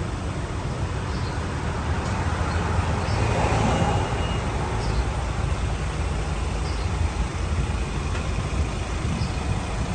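Motor vehicle road noise: a steady low rumble with an even hiss over it.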